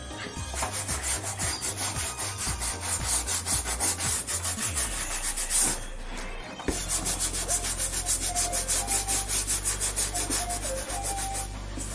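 An old toothbrush scrubbing a sneaker with a paste of baking soda and warm water: quick back-and-forth strokes, several a second, with a short pause about six seconds in.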